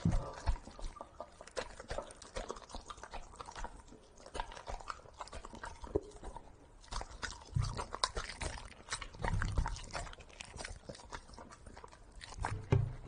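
Golden retriever chewing soft cooked kabocha squash fed from a person's hands: wet smacking and irregular mouth clicks.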